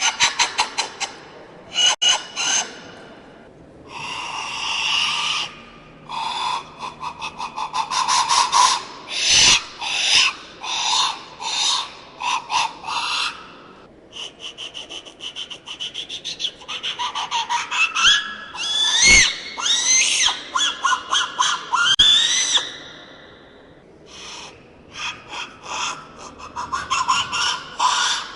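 Ancient-Mexican-style clay noise whistles (death-whistle type) blown in a series of short hissing, screeching blasts with a rapid flutter, with rising and falling whistled tones about two-thirds of the way through.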